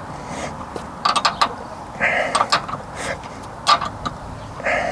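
Hand tools clicking and knocking against metal in short, irregular clusters while a car's tie rod is being adjusted.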